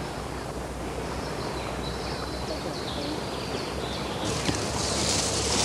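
Steady outdoor background hiss; about four seconds in a louder, brighter rustling starts as a trout on a stringer is lowered through the bankside grass into the water.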